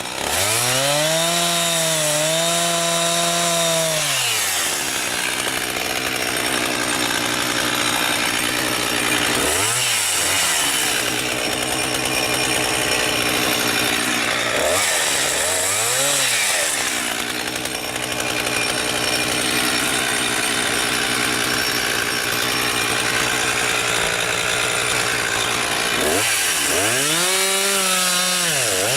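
Husqvarna 359 two-stroke chainsaw at high revs, cutting through logs. Its note is pulled down while the chain is in the wood, rises again when it comes free around ten and sixteen seconds in, and revs up once more near the end.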